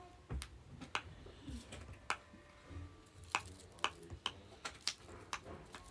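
Silicone pop-it fidget bubbles being pressed, giving a string of about ten sharp pops at an uneven pace.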